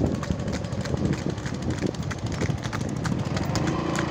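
Bullock cart running fast on a paved road: a continuous rapid clatter of the cart's wheels and frame mixed with the bull's hoofbeats. A short steady tone joins in near the end.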